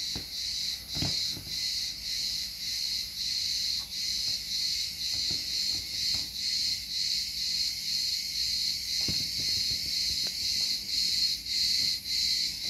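Insects chirping in a steady high-pitched pulsing trill, about three pulses a second. A few faint knocks from rubber toy figures being handled on a wooden shelf.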